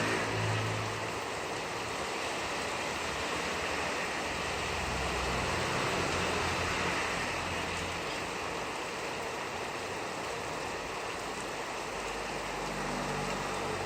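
Steady rain falling, an even hiss of water. A faint low hum comes in near the end.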